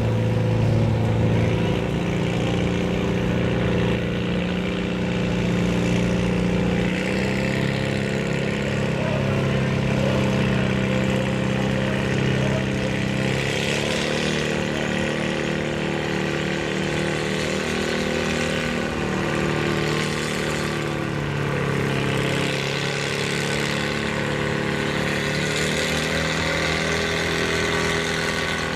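Farm tractor engine running steadily, its engine speed shifting in steps a few times.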